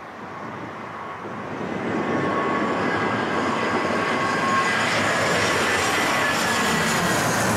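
Turbofan engines of an Airbus A320-family airliner on landing approach, gear down, passing low overhead. The noise grows louder over the first two seconds and then stays loud, with a steady whine in it.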